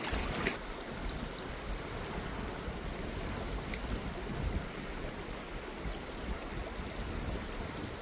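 Steady rush of a fast river with wind buffeting the microphone, making a low rumble under the flowing water.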